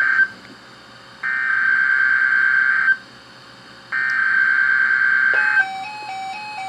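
NOAA Weather Radio EAS SAME header: harsh digital data bursts, the tail of one and then two more, each about a second and a half long with a quiet second between them. About five seconds in, a simple electronic tune of alternating notes starts.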